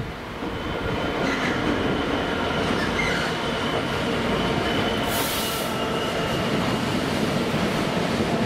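Class 66 diesel-electric freight locomotive, with its two-stroke EMD V12 engine, approaching and passing close by, followed by a rake of empty steel wagons rumbling over the rails. A brief hiss comes about five seconds in.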